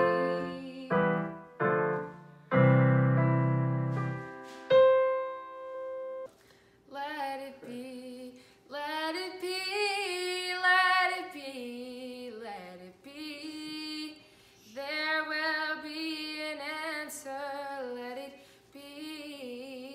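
Digital keyboard playing piano chords, ending in a single held note about five seconds in. A young woman then sings a slow melody.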